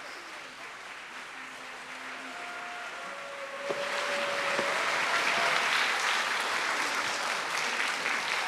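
Audience applauding, swelling louder about three and a half seconds in.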